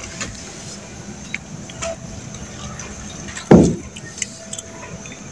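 Fresh butter being gathered by hand from buttermilk in a clay pot and lifted out in a lump: small wet clicks and squelches, then one loud, short slosh that drops in pitch about three and a half seconds in.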